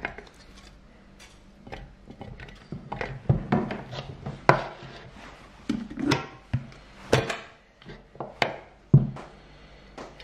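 Kitchen handling sounds: irregular knocks and clatters of bowls and utensils against a wooden board and table, about a dozen in all, over a faint steady hum.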